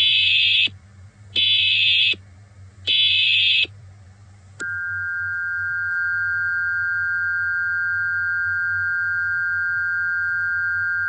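Emergency Alert System tones: three short bursts of data noise about a second and a half apart, then the long steady two-tone attention signal, which starts about four and a half seconds in.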